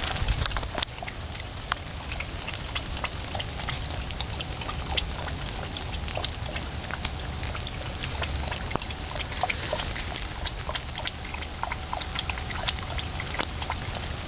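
A puppy lapping water from a plastic bucket: a quick, irregular run of small wet laps and splashes.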